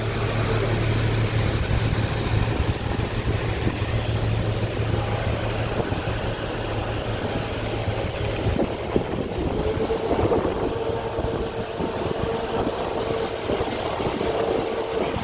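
Airport apron noise of aircraft and ground equipment: a steady low engine hum that fades out about halfway through, then a steady whine that comes in about ten seconds in, over a constant rushing background.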